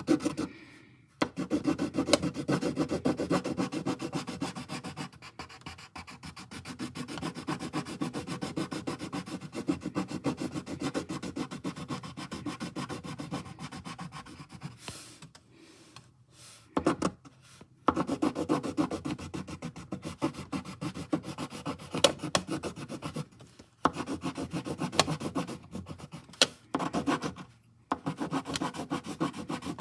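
Pencil rubbing and scratching on paper in rapid back-and-forth shading strokes, with a few short pauses.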